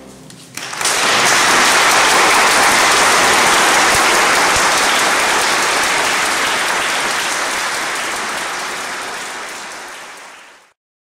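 Audience applauding, a dense clapping that starts suddenly just under a second in, holds steady, then fades away and cuts off near the end.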